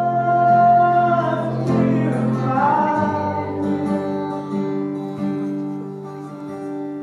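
Music with a singing voice over plucked guitar. A long held note falls away about a second in, and a new phrase rises in after it.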